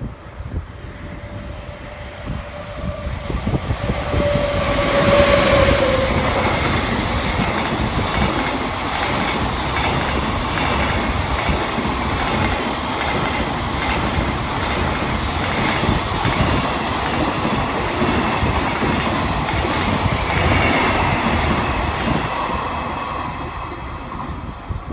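A JR freight train passing close by. It builds as the locomotive approaches, with a brief whine that drops in pitch about five seconds in, then a long, steady run of freight wagons clattering over the rail joints, fading near the end.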